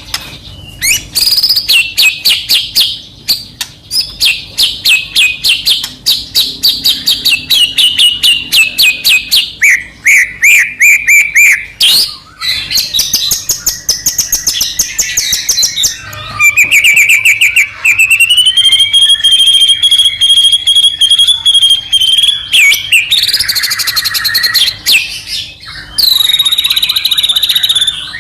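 A white-rumped shama singing loudly and without a break: fast rattling trills of many notes a second, short falling phrases, and a long held whistle in the middle of the passage, then more chattering phrases.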